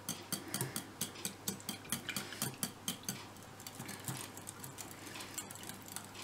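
Wire whisk beating yogurt and milk in a glass bowl, its wires clicking against the glass about four to five times a second. The strokes grow fewer and fainter in the last couple of seconds.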